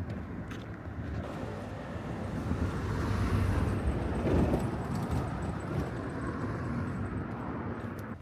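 A vehicle passing close by. Its noise builds to a peak about four seconds in, then fades.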